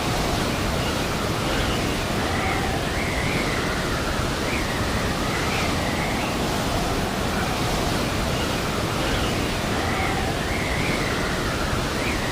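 Blizzard wind: a steady, unbroken rush of noise with a faint wavering whistle over it.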